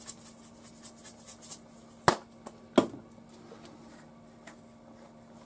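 Plastic spice shaker of black pepper shaken over a skillet, giving quick light ticks about five a second for the first second and a half, then two sharp knocks about two and three seconds in as spice containers are set down and picked up on the tiled counter. A faint steady hum lies underneath.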